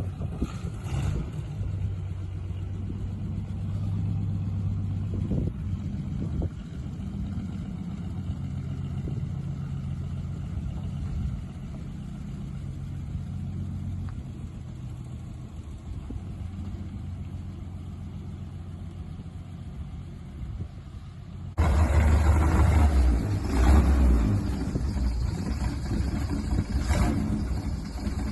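A vehicle engine running steadily with a low hum. About 21 seconds in, the sound cuts abruptly to a louder, noisier stretch with the engine still running.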